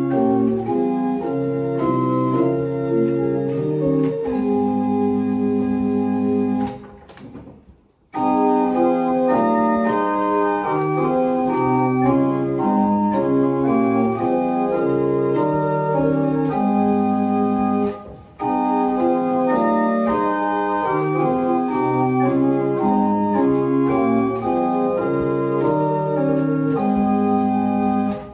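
A small wooden chamber organ playing a slow piece in held chords. The phrase stops briefly about seven seconds in and the music resumes, with a shorter break about eighteen seconds in.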